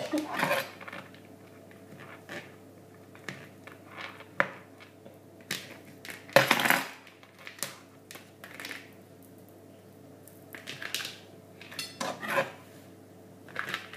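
Cutlery clinking and scraping on plates during a meal, in scattered short clinks with one louder clatter about halfway through.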